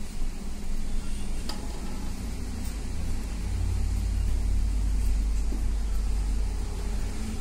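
A low, steady rumble with a few faint clicks.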